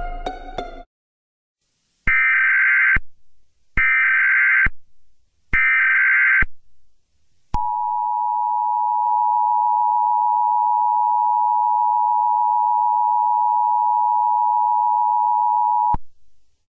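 Emergency Alert System tones from a mock alert. First come three short bursts of SAME header data, a screechy digital warble about a second each, repeated at even spacing. Then the EAS attention signal follows, a steady two-note tone held for about eight seconds that cuts off abruptly; it announces the spoken alert message.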